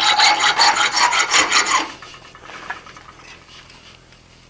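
Half-round file rasping back and forth across a forged iron cabinet handle clamped in a vise, smoothing it. The rapid filing strokes stop about two seconds in.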